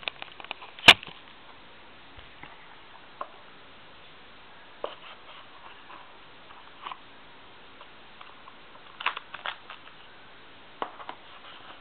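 A sharp knock about a second in, as of a camera being set down, then scattered small taps, clicks and rustles of a boxed model being handled.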